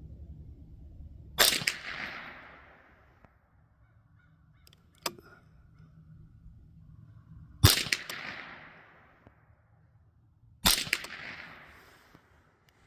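Three .22 LR rifle shots from a semi-automatic Savage A22, each a sharp crack followed by a fading echo. The first comes about a second and a half in, the next two about six and then three seconds apart. A faint click sounds between the first and second shots.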